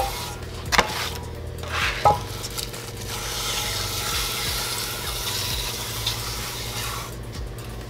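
A flat granite stone being rubbed back and forth across the WD-40-wetted, freshly machined deck of a Toyota 7M cylinder head, a continuous wet, gritty scraping as it laps the machining burrs off the surface. Two short knocks of the stone on the head come within the first two seconds or so.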